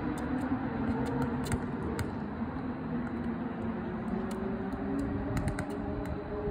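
Steady city background hum of traffic and machinery, with a few faint clicks scattered through it.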